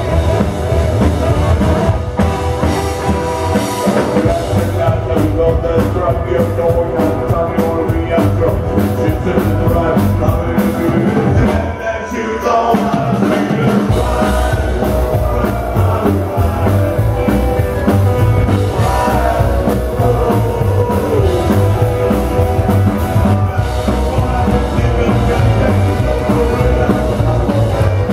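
Live rock band playing loud, with acoustic guitar, drums and a man singing. After a brief drop about halfway through, the bass and drums come back in much fuller.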